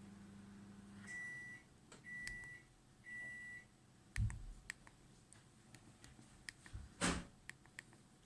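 Nokia 6103 mobile phone giving three short electronic beeps about a second apart, each a steady high tone. They are followed by scattered faint clicks, a knock about four seconds in and a brief rustle near the end.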